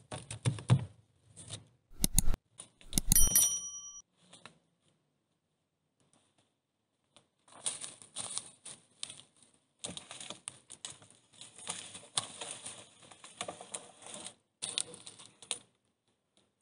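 Logs being handled: scraping, then two heavy knocks about two and three seconds in, the second with a short ring. Then a long run of crunching, crackling footsteps on dry leaves and soil.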